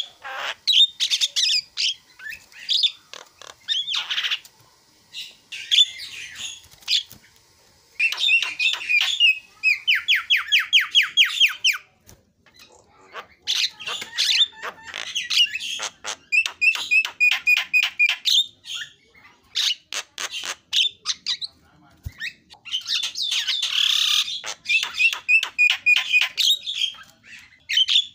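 Javan myna singing a long, varied song of harsh chatter, clicks and short whistles, full of phrases mimicked from other birds. About ten seconds in comes a fast, even trill, and the song breaks off briefly twice.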